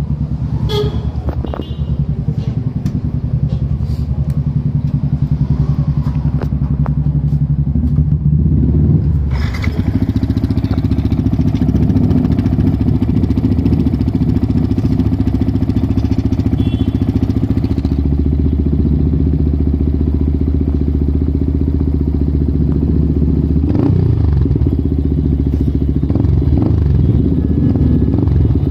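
Yamaha MT-15's single-cylinder engine idling through an aftermarket slip-on exhaust with a carbon-fibre-look tip, a steady, loud exhaust note that shifts slightly about nine seconds in.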